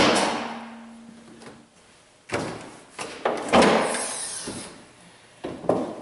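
A pickup truck door shuts with a loud slam. A string of metallic clunks and knocks from the truck's body follows about two to four seconds in, with two more knocks near the end.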